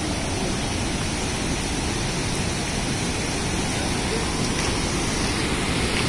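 White-water mountain river rushing: a steady, even noise of fast-flowing water.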